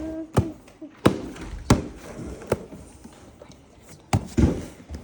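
Soft cloud slime being pressed and handled, giving about six sharp clicking pops at irregular intervals.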